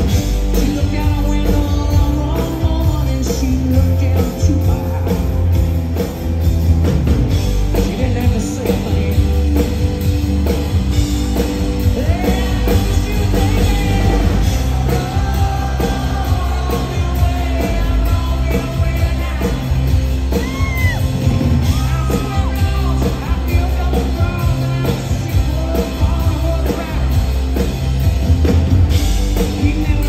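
Live rock band playing at full volume, with drums, bass and acoustic guitar, and singing.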